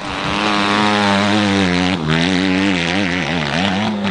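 Dirt bike engine revving hard on a steep climb. Its pitch holds high at first, breaks off briefly about two seconds in, then rises and falls quickly.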